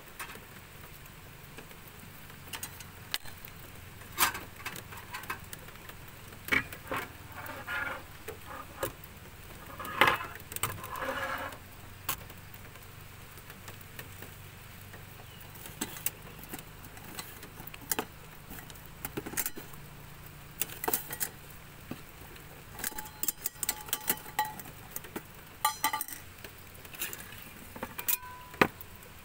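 Scattered clinks and knocks of an aluminium moka pot and steel cookware being handled, with a few short metallic rings and some rustling, over steady rain patter.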